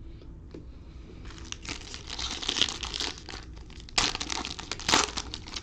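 Foil trading-card pack wrapper being torn open and crinkled in the hands, in uneven crackling bursts. The loudest crinkles come about four and five seconds in.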